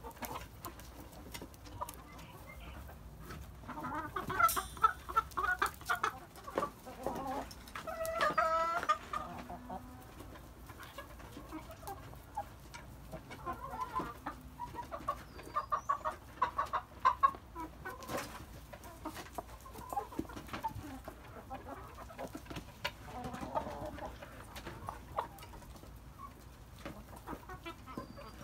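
Chickens clucking in several short bursts, with a longer drawn-out call about eight seconds in.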